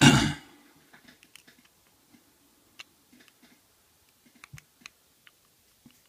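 Stainless steel disc padlock being handled: a loud metallic clack at the very start, then scattered faint clicks and taps of metal on metal as the lock is turned in the hand and a pick tool is brought to the keyway.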